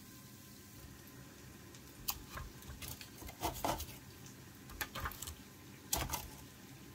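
Kitchen utensils clinking and knocking against metal cookware: a handful of short, light clicks and scrapes starting about two seconds in.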